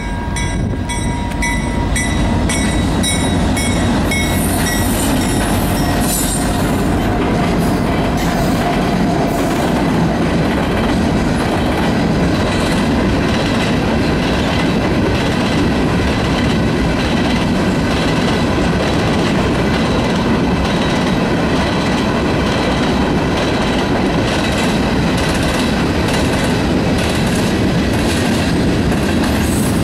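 Freight train of covered hopper cars rolling past close by: a loud, steady noise of steel wheels on the rails. At first a grade-crossing warning bell rings about twice a second, until the train's noise covers it after a few seconds.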